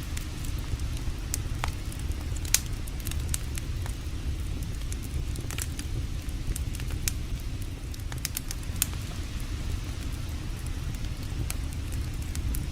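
Wood campfire crackling, with sharp scattered pops, the loudest about two and a half seconds in, over the steady low rush of a creek.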